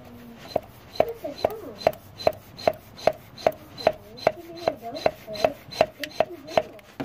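Hand-operated air pump worked in a steady rhythm, giving a sharp click on each stroke, about two and a half a second. Air is being pumped back through a truck's fuel line to clear a fuel blockage.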